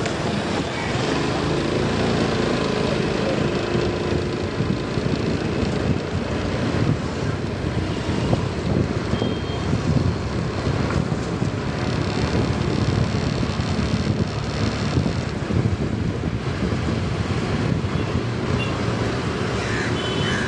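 Wind buffeting the microphone on a moving motorbike, with the bike's engine and road noise underneath, steady and gusting throughout.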